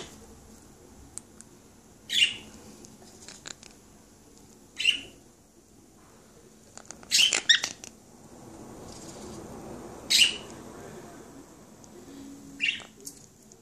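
A pet parrot giving short, sharp chirping calls every two to three seconds, with a quick run of three about seven seconds in.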